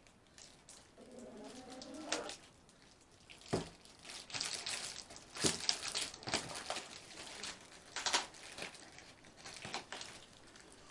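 Packaging being handled: rustling and crinkling with a string of sharp clicks and knocks. About a second in there is a brief low pitched sound, like a short coo.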